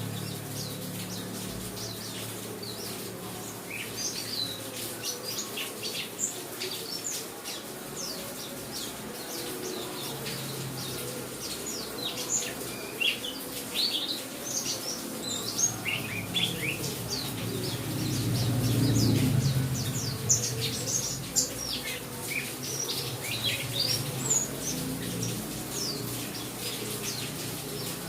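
Pleci (white-eye) chirping and twittering in many quick, short, high calls, over a steady hiss and a low hum that swells about two-thirds of the way through.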